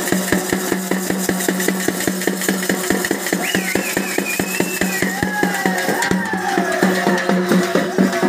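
Rapid, even drumming on a double-headed barrel drum over a steady low hum. About three seconds in, a wavering, gliding melody joins the drums.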